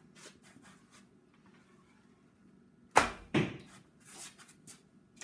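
A bow being shot: a sharp, loud crack about three seconds in as the string is loosed, then a second sharp smack a fraction of a second later as the arrow strikes.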